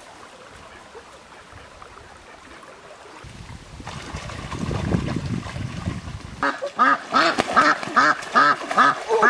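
Water splashing as ducks flee through a river, then from about six and a half seconds in, white domestic ducks quacking rapidly, about three short quacks a second.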